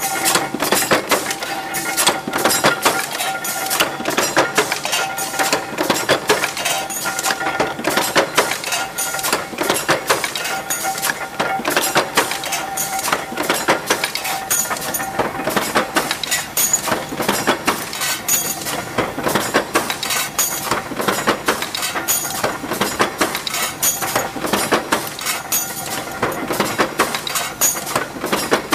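Metal clatter of steel door-hinge production: dense, irregular clinking and knocking of metal on metal, many strikes a second, with a steady machine tone for about the first twelve seconds that then fades out.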